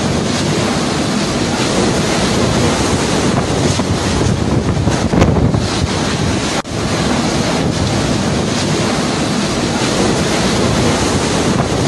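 Hurricane wind blasting across a phone's microphone: a loud, steady rush of wind noise that dips briefly about two-thirds of the way through.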